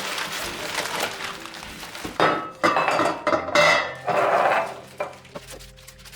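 Dishes and kitchenware clattering and clinking as they are handled, with several loud clatters in the middle seconds.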